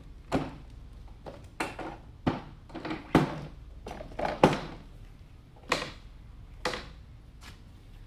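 Knocks and clunks, about seven of them at irregular intervals, as the seat of a Pride Go Chair power wheelchair is lowered onto its seat post and pressed and shifted into place.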